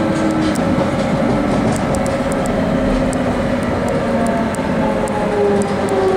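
London Underground Jubilee line train, 1996 stock, heard from inside the carriage as it slows alongside a station platform: a steady rumble of wheels and running gear, with the traction motors' whine slowly falling in pitch and a few faint clicks.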